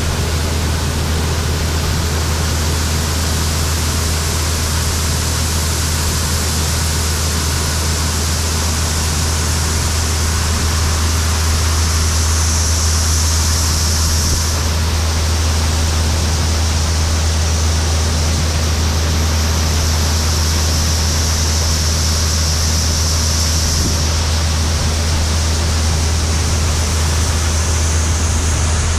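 Case IH 2388 Axial-Flow combine running steadily while harvesting soybeans: a constant deep engine hum under the broad rushing noise of the machine at work.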